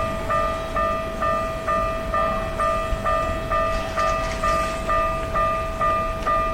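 Japanese railway level-crossing warning bell ringing in an even, repeating clang of about two strikes a second, the signal that a train is approaching.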